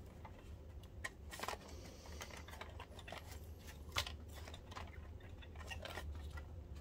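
Light clicks, taps and rustles of a projector main board and its cables being handled and fitted into the plastic case, with a sharper click about four seconds in, over a steady low hum.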